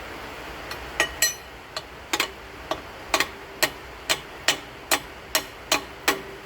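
Repeated sharp metal-on-metal taps with a brief ring, a dozen or so: irregular for the first couple of seconds, then a steady beat of about two a second.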